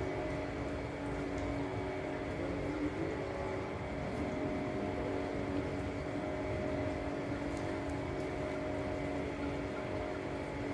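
Steady mechanical hum with several held tones over a low rumble.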